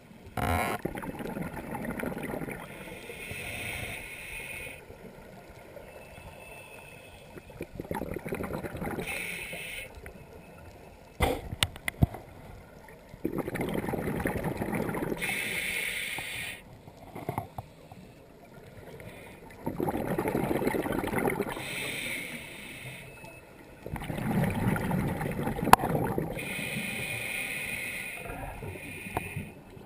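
Scuba diver breathing through a regulator underwater: a hissing inhale alternating with a bubbling, rushing exhale, repeating in slow cycles of a few seconds. A sharp click sounds about eleven seconds in.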